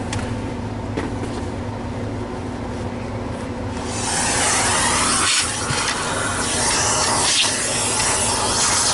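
A low steady hum with light handling, then about four seconds in a loud, steady rush of air starts abruptly, breaking off briefly twice, as dirt is cleaned out of a Miele turbo nozzle's parts.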